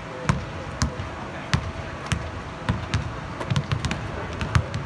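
Several basketballs bouncing on a hardwood court: about ten sharp thuds at irregular intervals, from more than one ball.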